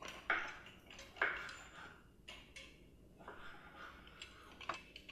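Kitchen food-preparation sounds: a string of short knocks, clicks and scrapes from utensils on a cutting board, the two loudest within the first second and a half.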